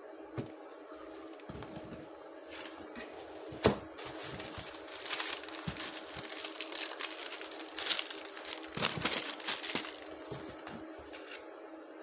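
Plastic packaging crinkling and tearing in irregular rustles as a parcel is opened by hand, with a sharp click a few seconds in. A steady low hum underneath.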